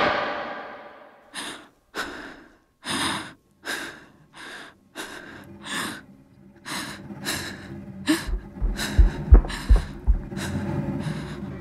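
A frightened boy's quick, shaky breaths and gasps, about fifteen in ten seconds. A few low, dull thumps join in from about eight seconds in.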